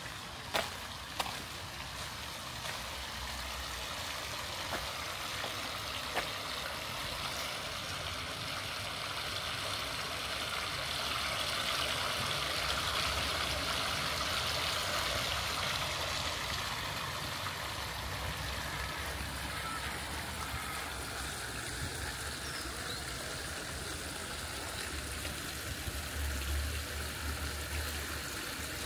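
Small garden-pond fountain splashing, its jets of spray falling onto the water; a steady rush that grows louder through the middle, then eases. Two sharp clicks about half a second and a second in.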